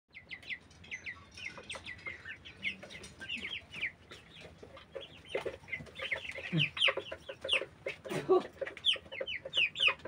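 A flock of young white broiler chickens peeping, many short falling high peeps overlapping. Lower clucking calls join about halfway through and grow louder toward the end.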